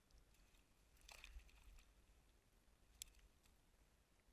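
Near silence, with faint rustling from a wet nylon cast net being hauled in and gathered by hand: a short scuffle about a second in and one sharp click about three seconds in.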